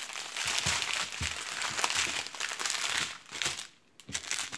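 Small plastic bags of diamond-painting drills crinkling as they are handled and pulled apart, with a brief lull about four seconds in.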